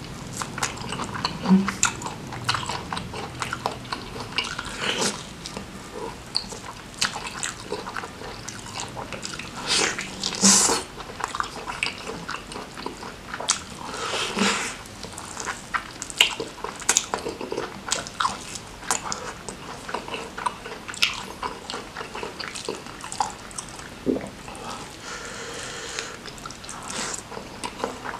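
Close-miked eating: wet chewing, lip smacking and biting into a piece of tripe and rice eaten by hand, with a few louder bites partway through. Near the end comes a short slurp of noodles.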